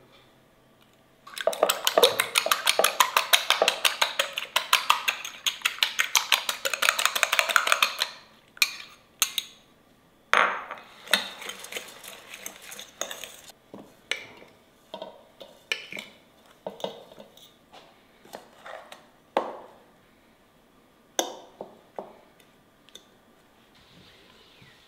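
A utensil beating quickly and steadily against a bowl for about seven seconds, then scattered clinks and knocks of kitchenware.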